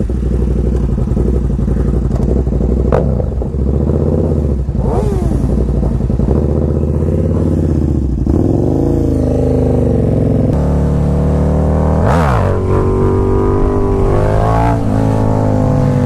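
Sport motorcycle engine under way, heard from the rider's seat, its pitch rising and falling with the throttle. About twelve seconds in the note dips sharply and climbs again, then runs on higher.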